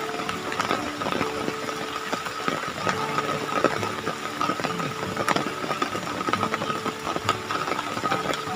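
Dry coconut husks and hollow shell halves being picked up and dropped onto a pile, making irregular knocks and clatters. Behind them a steady high drone and a low hum that comes and goes.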